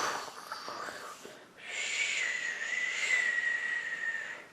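A person making a breathy wheezing sound with the mouth as a sound effect for a toy dragon: a short hiss, then a long high whistling wheeze of about three seconds that sinks slightly in pitch.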